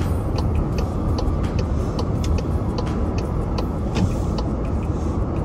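Car driving slowly: steady engine and tyre noise heard from inside the cabin, with faint scattered light ticks.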